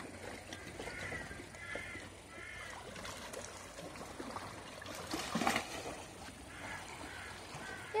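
Crows cawing faintly: a run of three short caws a second or so in, and a few weaker calls near the end.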